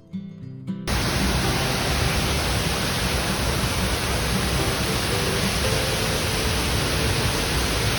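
Steady, loud roar of a nearby waterfall, cutting in just under a second in after a strummed acoustic guitar stops abruptly.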